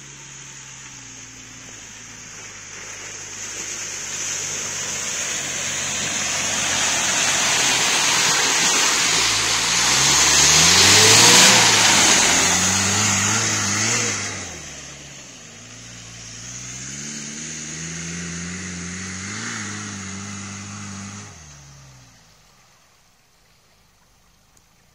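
Lifted Mitsubishi Pajero 4x4's engine revving up and down under load as it drives off-road through mud. It is loudest about halfway through, with a rush of tyre noise as it comes close. It then revs again more distantly and fades out near the end.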